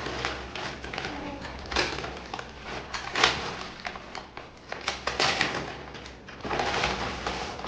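Packaging rustling and crinkling as a clothing parcel is unwrapped and handled, in irregular bursts.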